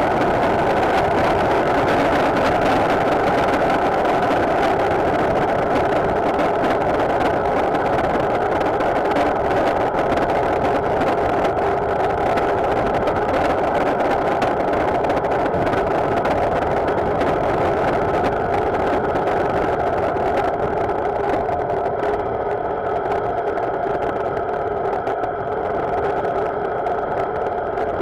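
Motorcycle engine running steadily while riding, growing a little quieter in the last few seconds.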